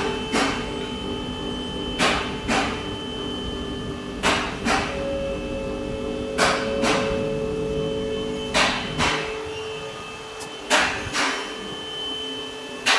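Background music: sustained tones under a slow, even beat of paired sharp hits, one pair about every two seconds.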